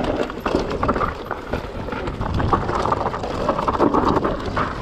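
Mountain bike riding fast over rough, rocky trail: a continuous clatter of knocks and rattles from the tyres and bike, with wind buffeting the microphone.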